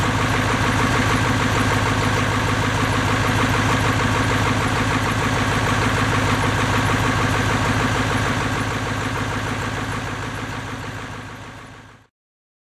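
Ford F-350's 7.3-litre Power Stroke turbo-diesel V8 idling steadily. The sound fades away over the last few seconds and then cuts off.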